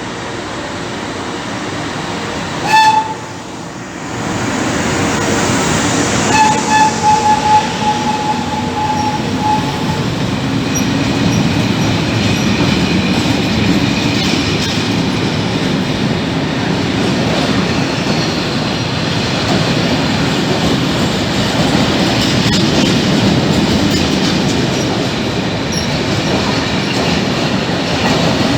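Electric locomotive at the head of a freight train sounding its horn, a short blast and then a longer one of about three and a half seconds, over the steady rumble and wheel clatter of the train rolling through.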